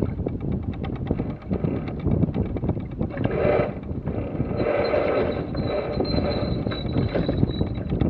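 Wind buffeting the microphone aboard a J/111 sailboat under way, a steady low rumble, with a brighter rustling stretch and a thin high whine in the middle while the crew pulls out the jib.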